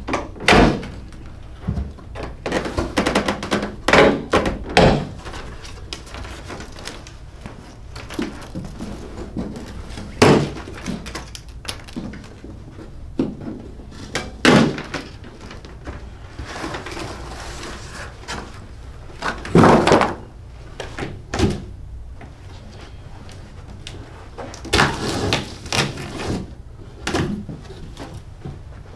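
Large cardboard shipping box being cut open and handled: irregular knocks, thumps and scraping of cardboard, with a cluster of quicker noisy sounds near the end.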